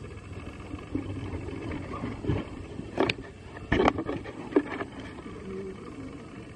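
Close-up microphone handling noise: a steady low rumble with a few sharp knocks, the loudest about three and four seconds in and another near four and a half seconds.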